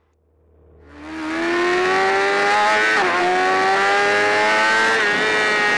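BMW sport bike's engine heard from the onboard camera, fading in and pulling hard with its note slowly climbing. The note dips briefly twice, about two seconds apart, as it is shifted up a gear.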